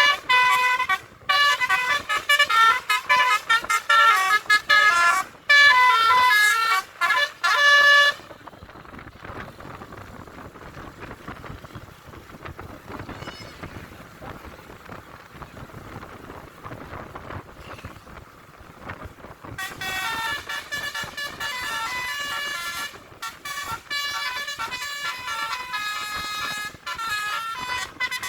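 Bus telolet horns: multi-tone air horns playing rapid stepping melodies, in the two-bus 'duet' style. They play for about the first eight seconds, stop for roughly eleven seconds of road and traffic noise, then start up again about twenty seconds in.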